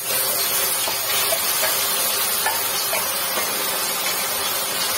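Wet ground onion paste sizzling in hot ghee and oil in a steel pan, a loud steady hiss, with a few light scrapes of the steel bowl and spatula against the pan.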